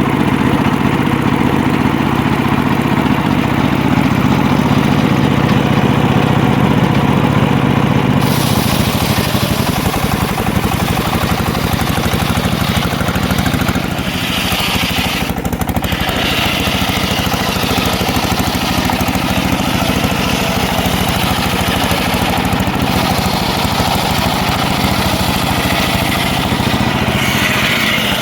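The engine of a homemade circular sawmill running steadily and loudly; the sound changes character about eight seconds in.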